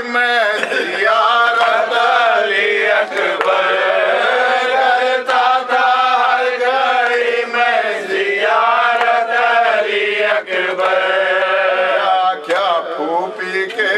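A man chanting an Urdu nauha, a Shia mourning lament, in long, wavering held notes.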